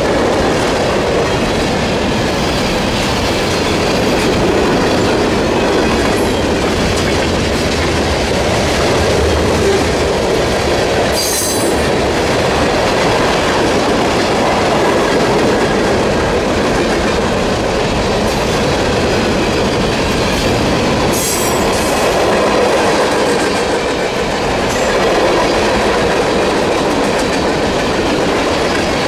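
Freight train cars rolling past, with a steady rumble and clatter of steel wheels on rail. Two brief high-pitched sounds come about ten seconds apart, near one third and two thirds of the way through.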